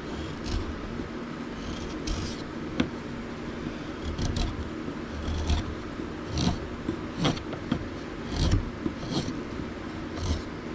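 Hand-pushed chisel paring shavings off a driftwood wand blank: about ten short cutting strokes at uneven intervals.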